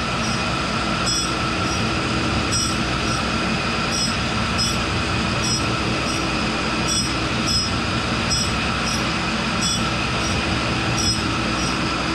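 Tool and cutter grinder running steadily, its wheel grinding a hardened-steel chuck key with a constant high whine. Short, sharper rasps come at irregular intervals of about a second as the wheel bites the work.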